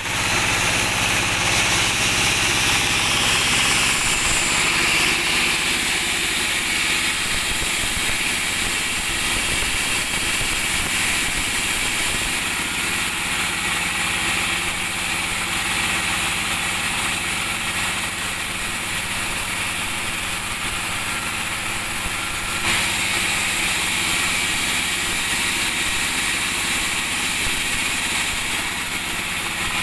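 Two-stroke petrol chainsaw engine running at a steady speed without revving up or down.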